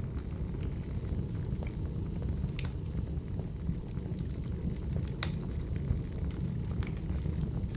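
Wood fire crackling: a steady low rumble of burning logs with sparse sharp pops and snaps, the loudest a little after five seconds in.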